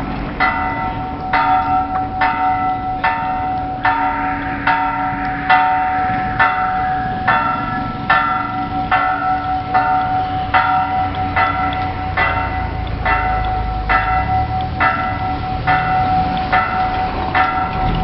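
Church bells struck rapidly and evenly, about two strokes a second, over the steady hum of the bells ringing on.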